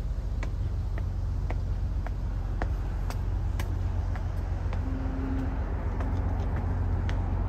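Footsteps climbing concrete steps, about two a second, over a steady low rumble of outdoor city noise.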